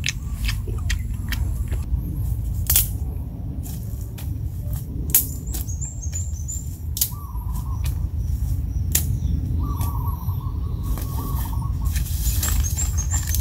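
Dry sticks and twigs snapping and crackling now and then as they are picked up and broken by hand, over a steady low rumble, with small birds chirping a few times.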